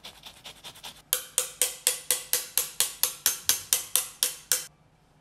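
A lemon rasped quickly against a fine zester, about four scraping strokes a second. The strokes grow much louder about a second in and stop abruptly near the end.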